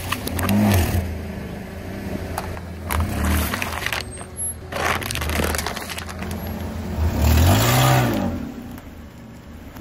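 A car engine revving up and back down several times, the longest and loudest rev near the end, over sharp crackling and splashing as a tyre bursts water-filled balloons, plastic cups and liquid-filled bags.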